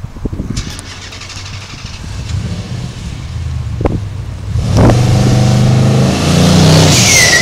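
Dodge Challenger's engine running at the drag-strip start line, then brought up to a loud, steady high rev about five seconds in. Near the end there is a short tire squeal.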